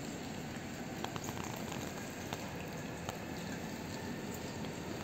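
Steady rain hiss with scattered small drips and ticks.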